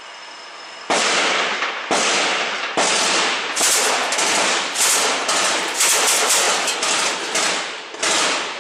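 Belt-fed machine gun firing from inside a small enclosed room through a hole in the wall: a string of loud shots and short bursts starting about a second in, each ringing briefly in the room.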